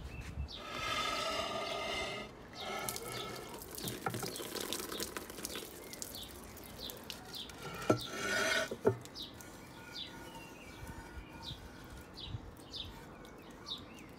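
Outdoor ambience with small birds chirping repeatedly in short, falling calls. A couple of sharp knocks come about eight and nine seconds in.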